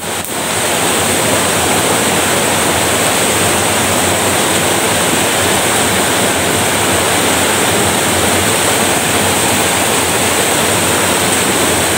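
Rushing water of a shallow rocky stream and its small waterfall, a loud, steady rush.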